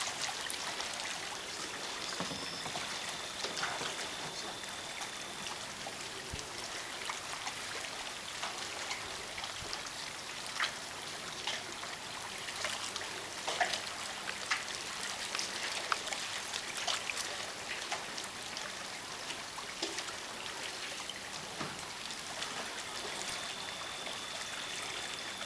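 Water trickling and dripping, as from a kayak paddle, with many small drips and light splashes over a steady watery hiss.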